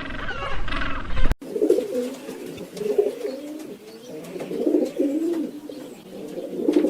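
Pigeons cooing: repeated low, warbling coos that begin after an abrupt cut about a second in. A brief higher-pitched voice is heard before the cut.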